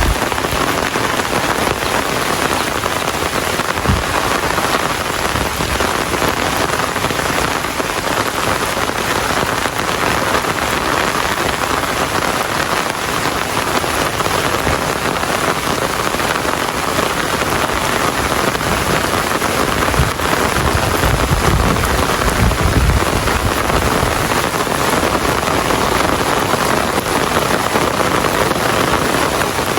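Steady rain falling, an even hiss of drops on surfaces. A low rumble rises under it about two-thirds of the way through and lasts a few seconds.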